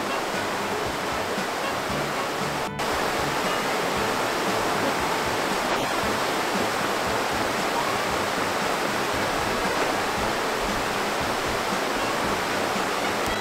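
Tall waterfall pouring steadily down a rock face, an even rushing of water with a brief dropout about three seconds in.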